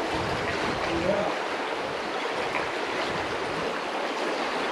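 Shallow river water flowing and lapping close to the microphone, a steady rush.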